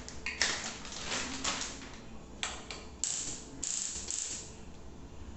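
Thin plastic packaging being torn open and crumpled by hand, giving a run of irregular crackling rustles.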